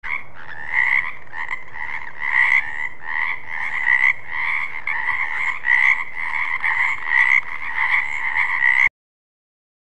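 Frogs croaking in a continuous chorus, the calls swelling about twice a second, then cutting off abruptly near the end.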